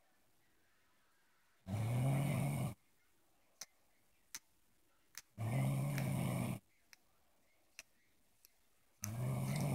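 Loud snoring: three snores about three and a half seconds apart, each lasting about a second, with a few faint ticks in the quiet between them.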